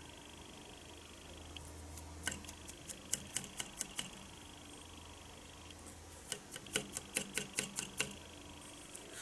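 Two short runs of sharp, light metallic clicks, about three to four a second, from hand work on a small steel machinist's vise.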